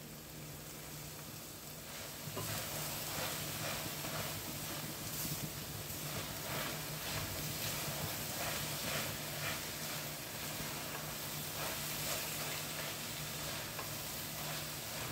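Freshly grated coconut sizzling in hot melted sugar caramel and ghee in a steel pan, with a spatula stirring and scraping through it in uneven strokes. The sizzle gets louder about two seconds in.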